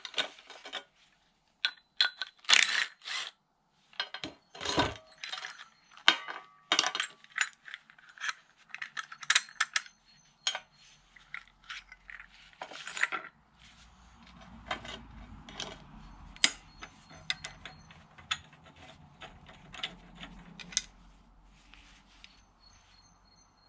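Metal parts and tools clinking and knocking on a workbench: a long string of separate sharp knocks and clinks. About halfway through, a low steady hum starts underneath them.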